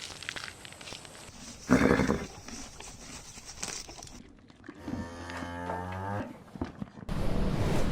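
Cow mooing: one long low moo about five seconds in, after a short loud sound near two seconds.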